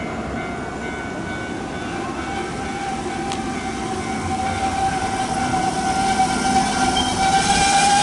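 Hanshin 8000-series electric train pulling in along the station platform, growing steadily louder as it nears, with a steady whine of several pitches over the rumble of the wheels. A higher squealing tone joins in near the end.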